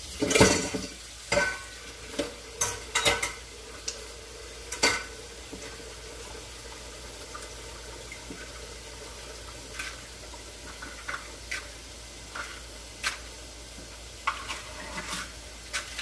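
Eggs sizzling faintly and steadily in a frying pan on low heat, with a utensil clinking and scraping against the pan and dishes. The clinks come in a busy cluster in the first few seconds, loudest near the start, then as scattered single taps.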